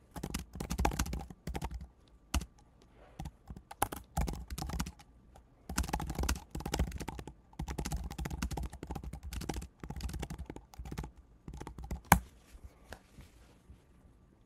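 Typing on a computer keyboard in quick runs of keystrokes with short pauses, ending with one sharper, louder key press about twelve seconds in.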